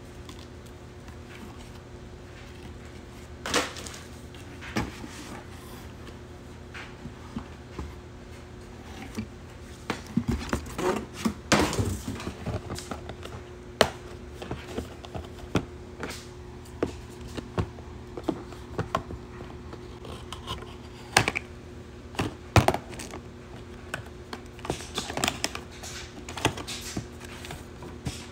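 Cardboard and paperboard packaging being handled and opened: scattered taps, knocks and scrapes of box flaps, with a denser stretch of rustling about ten to twelve seconds in. A faint steady hum runs underneath.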